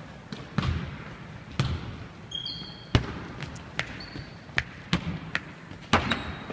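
Basketball bouncing on a hardwood gym floor as players dribble, an irregular run of thuds with the loudest about three seconds in. A few short, high sneaker squeaks come about two and a half seconds in.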